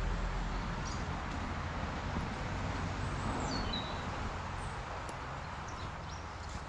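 Steady outdoor background noise with a low rumble, and a short, faint bird call with a falling note about three seconds in.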